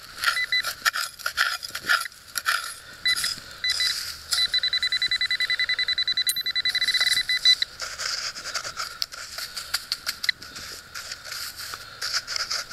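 Handheld metal-detecting pinpointer beeping, first in short separate chirps, then in a fast run of beeps, about nine a second for about three seconds, as it closes in on a metal target in the hole. Dry soil is scraped and crunched alongside.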